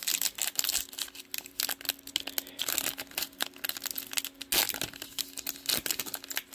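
2023 Panini Prizm football trading cards being handled and flicked through one behind another: a dense run of quick clicks and crinkles.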